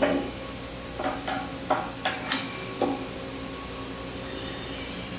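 Kurt DX6 vise's steel screw and nut being slid back into the cast vise body: about seven light metal clicks and knocks in the first three seconds as the parts bump and seat.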